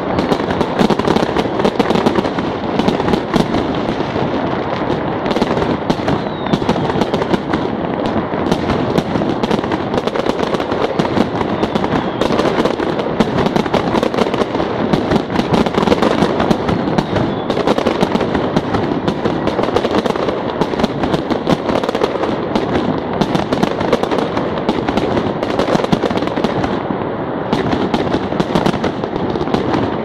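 Fireworks and firecrackers going off in a dense, continuous barrage: many overlapping bangs and crackles with no pause.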